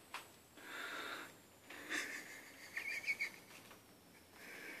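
A person breathing and sniffing faintly close to the microphone: a few quiet breaths about a second apart, one near the middle with a slight wheezy whistle.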